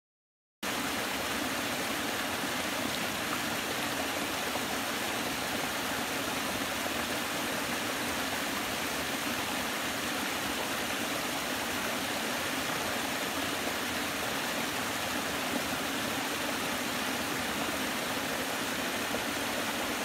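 Water rushing over a low stepped cascade in a forest stream: a steady, even rush of falling and splashing water that starts abruptly about half a second in.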